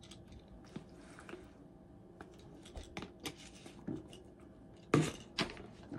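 Scattered light clicks and rustles of small objects being handled, with two sharper knocks about five seconds in.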